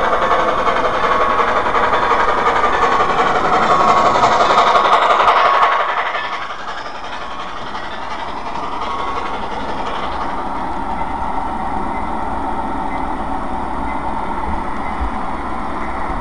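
Model train running on layout track: a steady mechanical whir of motor and wheels with a faint whine, dropping in level about six seconds in.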